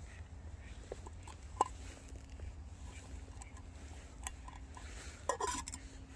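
A few sharp, light clicks and clinks of metal camp cookware being handled, with a louder cluster of knocks near the end, over a low steady rumble.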